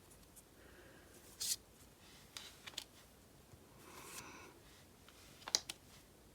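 Faint handling of paper photocards: a few short rustles and scrapes, then a sharp tap about five and a half seconds in.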